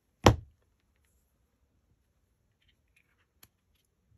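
A single sharp knock just after the start as a plastic squeeze bottle of craft glue is set down on a cutting mat, followed later by one light click.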